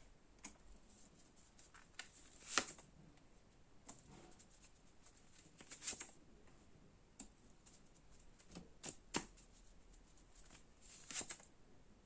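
Tarot cards being shuffled and laid out: faint, scattered rustles and soft clicks, with a handful of sharper card snaps.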